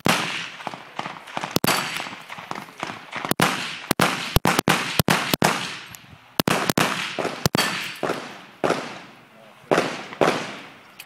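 Custom STI-based Limited-division competition pistol firing in quick pairs and short strings, each shot followed by a fading echo. The shots come fast early on and thin out toward the end.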